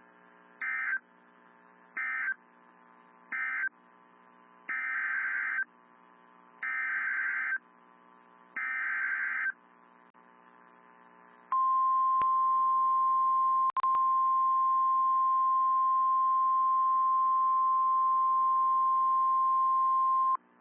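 NOAA Weather Radio Emergency Alert System signal. It starts with three short warbling digital data bursts, the end-of-message code closing the previous warning. Three longer data bursts follow, the SAME header announcing a new warning, and about eleven seconds in comes the steady single-pitch 1050 Hz warning alarm tone, lasting about nine seconds, all over a faint radio hum.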